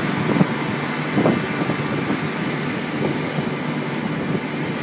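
Steady drone of a tuna purse seiner's engine and deck machinery, mixed with wind and sea noise, with a few short louder sounds over it in the first three seconds.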